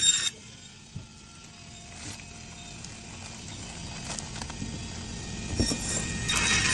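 Electric band saw running with a steady low hum, its blade giving a shrill screech as it cuts through frozen fish right at the start and again near the end. Scattered knocks from frozen fish pieces being handled on the steel table come in between.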